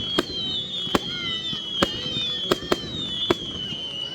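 Fireworks display: six sharp bangs at irregular intervals, roughly one to two a second, over a constant high, shrill wavering sound.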